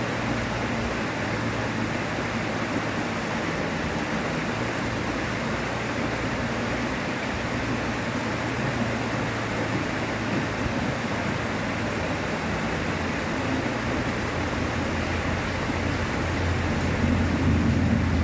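River water rushing in a steady, even wash. A low hum underneath grows louder near the end.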